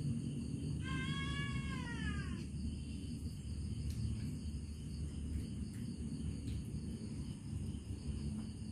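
A cat meows once, a long call of about a second and a half that falls in pitch at its end, over a steady low rumble.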